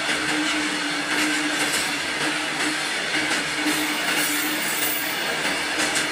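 Loaded covered freight wagons rolling past on steel rails: a steady rumble of wheels and bogies, with faint clicks at the rail joints and a humming tone that comes and goes.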